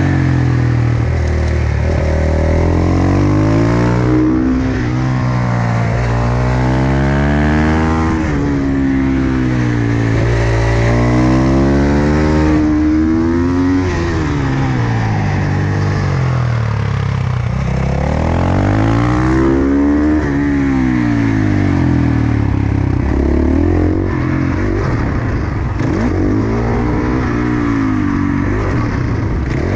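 Single-cylinder four-stroke supermoto motorcycle engine ridden hard on a track, heard from on board: the pitch climbs again and again as it accelerates through the gears, then falls away under braking into corners.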